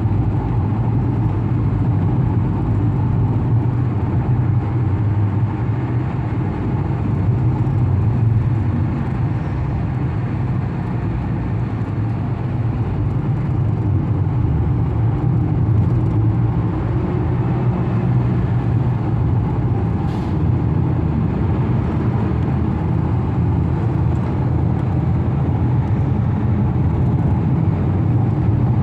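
Steady road and engine noise of a moving car, heard from inside the cabin: a constant low rumble with tyre hiss.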